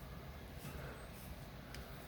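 Quiet room tone with one faint click near the end.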